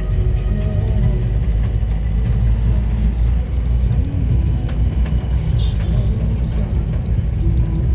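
Steady low rumble of a moving vehicle, with a few faint held tones over it.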